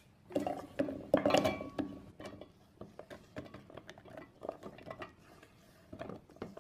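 Raw carrot slices tipped from a wooden chopping board into an empty stainless steel mixer-grinder jar: a burst of clattering knocks with a short metallic ring as the first slices hit the steel, then scattered lighter taps as the rest slide in.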